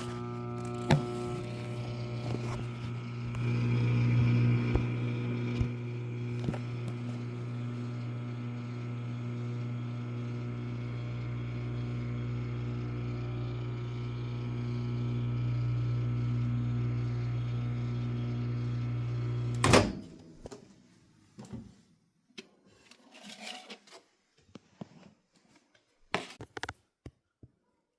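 Microwave oven running with a steady low hum. It shuts off with a loud click about twenty seconds in, followed by a few light knocks and handling sounds.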